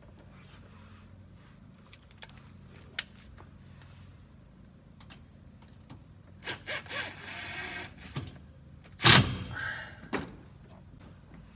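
DeWalt cordless impact driver running for about a second and a half, driving a fastener into the Mule Pro FX's plastic underbody cover. A single loud knock follows about a second later. Crickets chirp faintly throughout.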